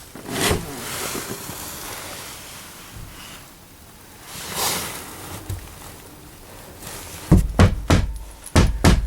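Two brief rustling swishes, then a quick run of heavy thumps and knocks in the last two seconds.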